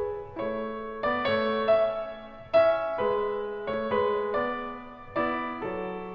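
Background piano music: single notes and chords struck one after another, each fading away.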